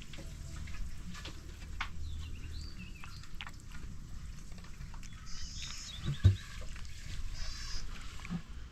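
A cat chewing and licking a scrap of raw meat on a wooden board, with faint wet clicks. Birds chirp briefly several times in the background, and there is a single dull thump about six seconds in.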